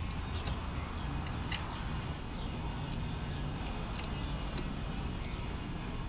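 Steel roller chain being fed by hand around a go-kart's motor and axle sprockets, giving a few scattered light metallic clicks over a low steady hum.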